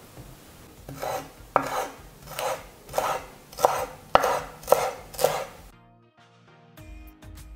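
A chef's knife chopping fresh dill on a wooden cutting board: about eight crisp knocks of the blade on the board, a little under two a second. Music begins near the end.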